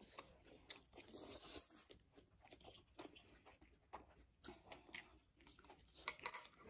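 Chewing, lip smacks and soft clicks of eating, with the slurp of ramen noodles being sucked in.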